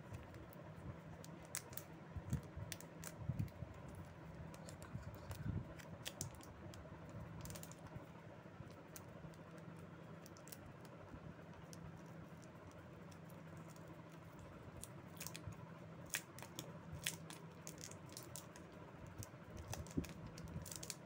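Faint handling noise of a smartphone being pulled out of its clear plastic sleeve: scattered small clicks and plastic crinkles in short clusters, over a steady low hum.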